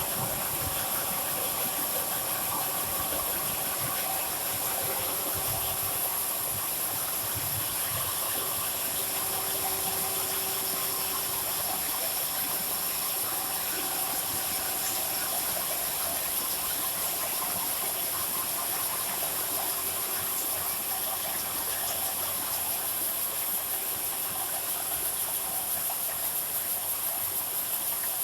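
Automatic can body welding machine running steadily: a continuous even hiss, with a faint hum that comes and goes underneath.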